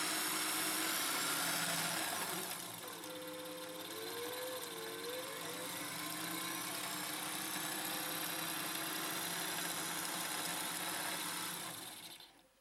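Singer 401G sewing machine's electric motor running steadily while winding a bobbin, a continuous whir. It gets somewhat quieter about two seconds in and winds down to a stop near the end.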